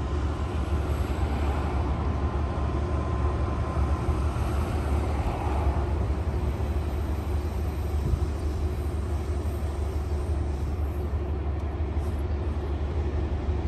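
Steady low rumble of road traffic and a distant diesel locomotive approaching along the tracks.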